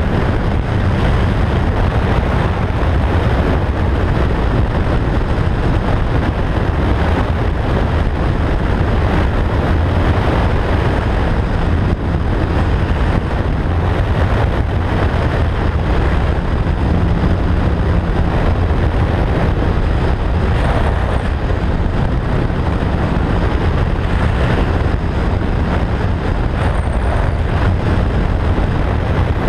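Motorcycle cruising at steady road speed: heavy wind rushing over the microphone, with the engine running underneath.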